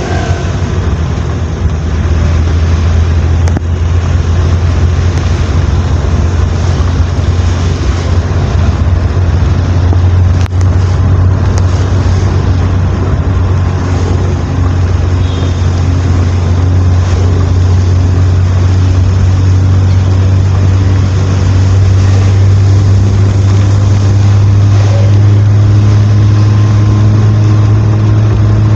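A vehicle being driven: a steady engine drone with road noise, edging slightly higher in pitch near the end.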